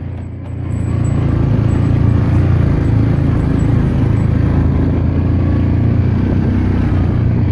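Yamaha Grizzly 400 four-wheeler's single-cylinder engine running steadily as it rides a trail. It eases off at the very start and picks back up within about a second.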